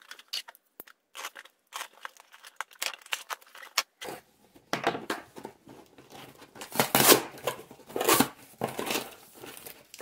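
Small clear plastic bag crinkling and rustling as it is handled, in irregular scratchy bursts that grow louder about halfway through.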